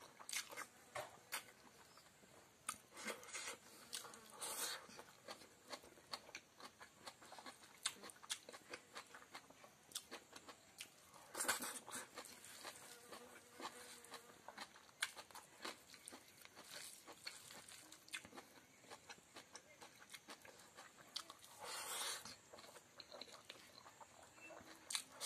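A person eating rice and fried chicken intestine with his hand: quiet chewing and wet mouth clicks, with fingers squishing and mixing rice on the plate. There is a steady run of soft clicks and a few louder brief rustles.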